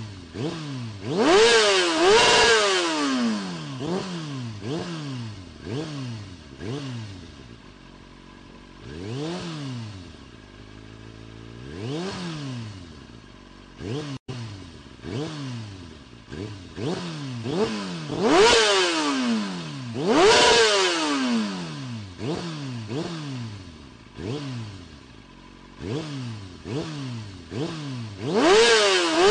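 Motorcycle engine revved over and over, each rev rising and falling in pitch, about one to two a second. A few harder, higher revs stand out, near the start, twice in the second half and at the very end. The sound cuts out briefly about halfway through.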